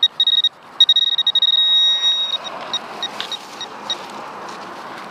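Teknetics Tek-Point pinpointer beeping as it is worked over a target in the grass: a few short high beeps, a steady held tone of about a second starting about a second in, then scattered short beeps. The tone signals metal close to the probe tip.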